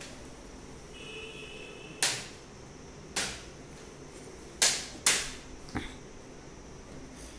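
Five sharp knocks spread over about four seconds, the two loudest half a second apart just past the middle and the last one fainter, each with a brief room echo.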